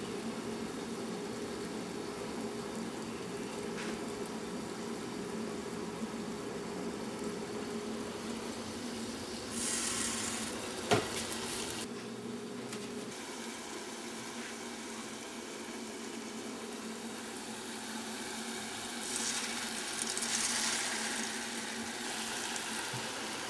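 Pitha dumplings deep-frying in a pot of oil, a steady sizzle that grows louder twice, about ten seconds in and again near the end. A single sharp click, the loudest sound, comes about eleven seconds in.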